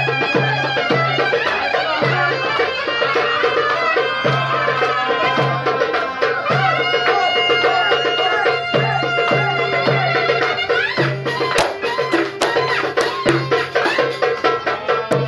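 Turkish folk music with a low drum keeping a steady beat under a winding melody.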